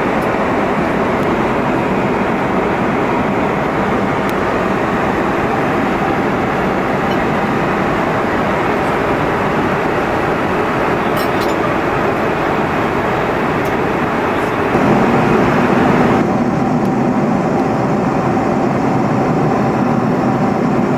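Steady rushing cabin noise of a Boeing 747-400 airliner in flight, airflow and engine drone together. About fifteen seconds in it changes to a lower, duller hum with a steady tone in it.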